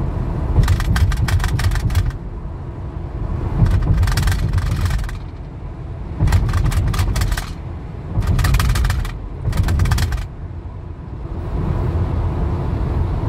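Steady road and engine rumble inside a moving car's cabin, broken by five louder bursts of fast crackling, each about one to one and a half seconds long, in the first ten seconds.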